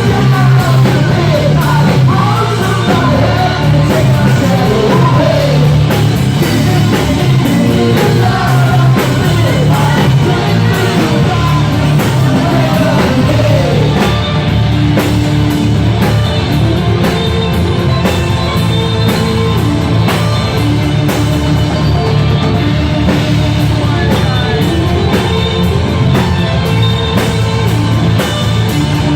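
Live rock band playing, with singing over drum kit and amplified instruments.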